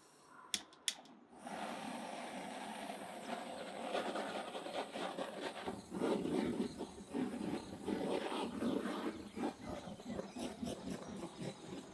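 Two clicks from a butane torch's igniter, then the gas flame catches and hisses steadily as it is played over a hanging lamb carcass, singeing it. The hiss grows louder and more uneven about halfway through.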